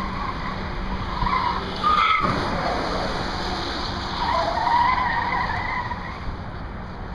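Tyres of an electric Shelby Cobra squealing as the car turns hard. There are short squeals about a second and two seconds in, then a longer, wavering squeal from about four to six seconds.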